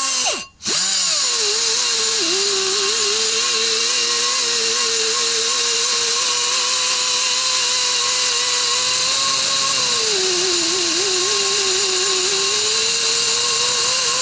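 Power drill running continuously at high speed with a steady whine, spinning the engine over to check for spark. Its pitch sags under load about ten seconds in and recovers about two seconds later.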